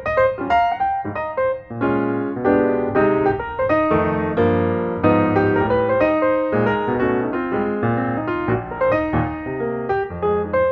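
Background piano music, chords and a melody played at a steady moderate pace.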